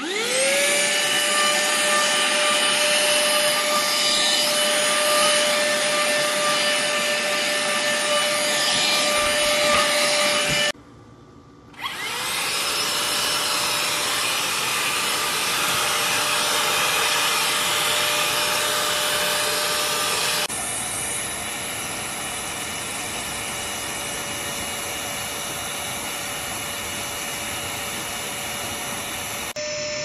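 Cordless handheld vacuum cleaner's motor spinning up with a rising pitch, then running with a steady hum over the rush of suction air. It cuts out briefly near the middle and spins up again, then runs on steadily.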